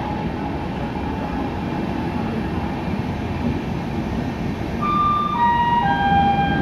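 Steady rumble of Indian Railways LHB passenger coaches rolling past a platform. About five seconds in, a chime of three notes stepping down in pitch starts, the station's public-address signal before an announcement.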